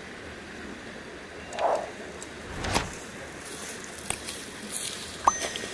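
Steady rushing of flowing river water, with a few short rustles and crackles of boots stepping on dry bamboo leaves.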